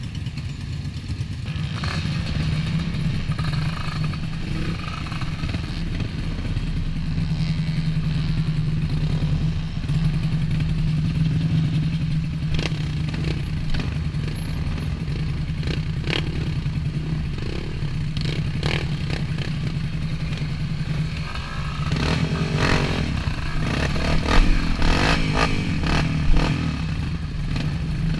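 Dirt bike engines running at low speed, a steady drone with other trail bikes around. Near the end it gets louder and busier, with several sharp knocks and clatter.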